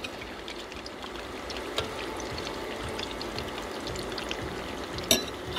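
Yam chips deep-frying in hot oil: a steady sizzle with fine crackling of bubbles. A couple of sharp clicks break through, the louder one about five seconds in.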